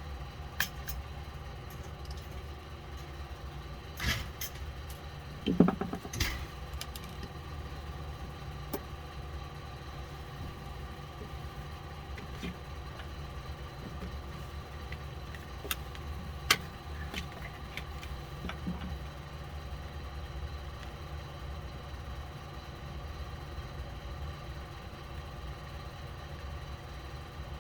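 Steady low mechanical hum with scattered small clicks and taps from an Xbox One controller's plastic case and screws being worked on with a T9 Torx screwdriver.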